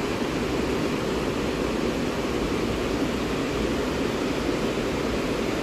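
A swollen, muddy mountain river in flood rushes over boulders as a steady, loud roar of water.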